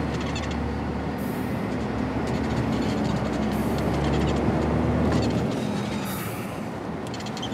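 Truck engine and road noise heard from inside the cab while driving at speed: a steady rumble whose lowest part eases off a little after about five seconds.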